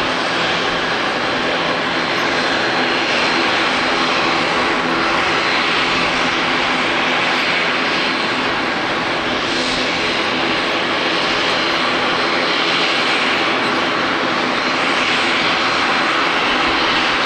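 Jet airliner's turbofan engines running: a steady, loud roar with a thin, high whine held on one note throughout.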